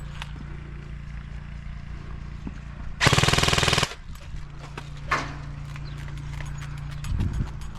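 An airsoft gun fires one short full-auto burst of rapid shots lasting just under a second, loud and close. About a second after it, a single lighter sharp snap follows.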